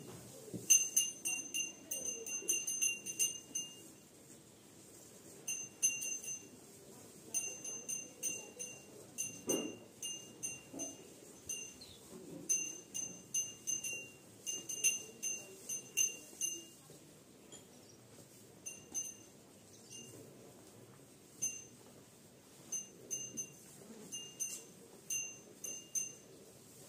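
Small metal cattle bell jingling in irregular clusters of short pings as the cows move their heads while eating, under soft munching of chaff. One duller knock comes about ten seconds in.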